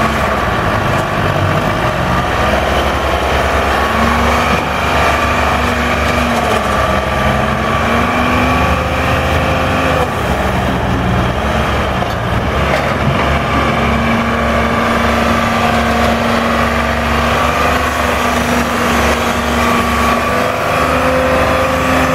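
Husky Brute 200 log loader's engine running steadily under hydraulic load as the boom and grapple are worked, its drone shifting a little in pitch now and then.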